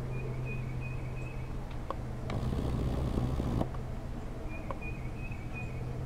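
Steady low hum and a swell of low rumble midway, with a faint high bird call held for about a second, twice, and a few light taps.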